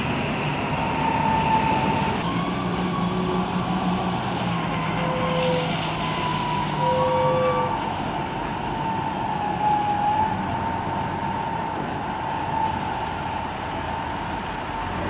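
Diesel container trucks running and moving slowly, a steady engine hum and rumble under thin, slowly wavering high tones.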